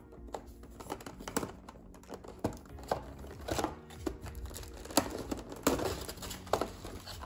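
A clear plastic storage tray being worked out of a tightly packed cardboard game box, with plastic crinkling and rustling from the tray and the bagged plastic pieces inside it. Irregular sharp clicks and knocks of plastic against cardboard mark the struggle to free it.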